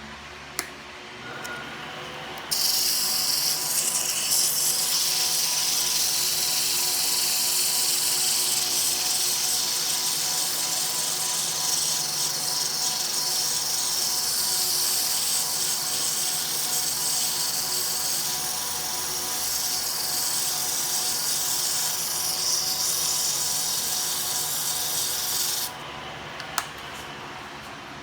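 Small benchtop lathe running with a steady motor hum; a tool held against the spinning work makes a loud, high hissing scrape that starts about two and a half seconds in and stops suddenly near the end.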